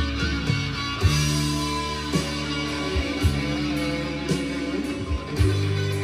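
Rock music with electric guitar over bass and a steady beat, played back from a cassette on a Tandberg TCD 440A tape deck.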